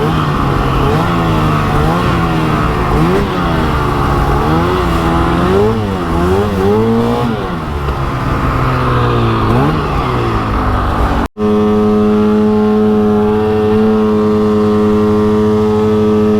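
Arctic Cat 858 two-stroke snowmobile engine revved up and down in repeated short rises, then, after a brief break, held at one steady pitch that does not climb. The engine is bogging and won't pull RPM, a fault the rider puts down to the exhaust valves "or something".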